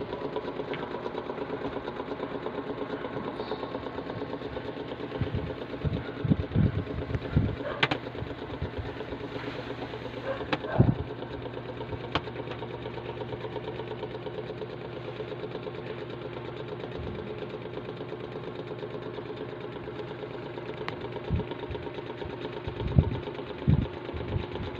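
A small motor running steadily with a fast, even hum, with a few light knocks and taps on top.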